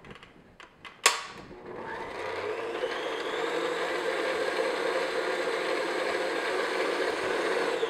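Electric stand mixer switched on with a click about a second in, its motor spinning up and then running steadily at medium speed as the flat paddle beats batter in the metal bowl.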